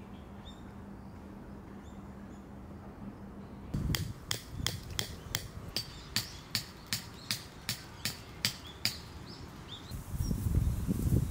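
A hammer driving a tent peg, about fifteen sharp blows at two to three a second, starting about four seconds in.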